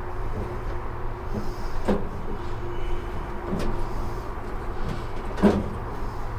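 Metal knocks and clunks as a heavy steel tool chest is worked down into a tool cart's frame, two sharp knocks standing out, the louder one about five and a half seconds in, over a steady low hum.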